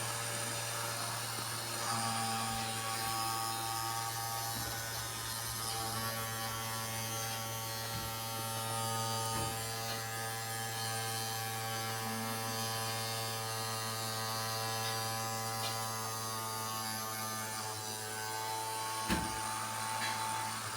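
Small DC motor of a homemade table fan running steadily with a constant whine, with a few faint knocks.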